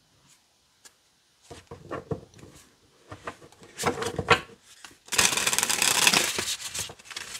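A deck of tarot cards being picked up and split with a few soft clicks, then shuffled by hand: about a second of cards rapidly rattling together just after the middle, the loudest part, then quieter handling.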